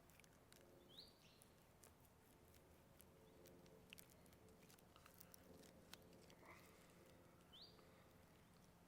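Near silence with a few faint ticks and, twice, a short rising bird chirp.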